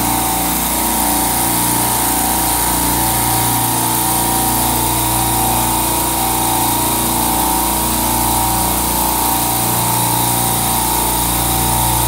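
Steady hum of a supermarket refrigeration compressor rack running: a constant drone made of several steady tones over an even hiss, unchanging in level.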